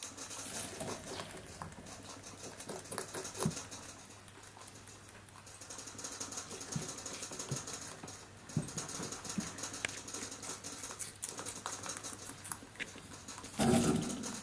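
A baby rabbit munching watermelon rind held out by hand: a quick, uneven run of small crisp crunching clicks from its teeth. A brief, louder rustle comes near the end.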